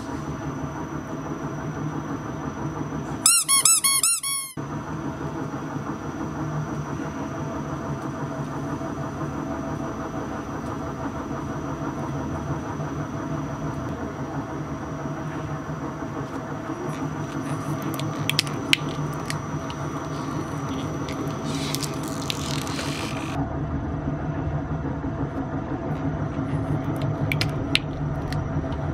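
Twin-shaft industrial shredder running with a steady hum. About three seconds in, a rubber bath toy squeaks loudly as it is squeezed. Later come a few sharp cracks as toys are caught in the cutter discs.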